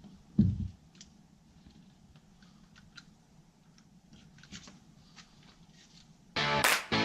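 A single low thump about half a second in, then faint scattered clicks and light knocks. Loud strummed guitar music cuts in near the end.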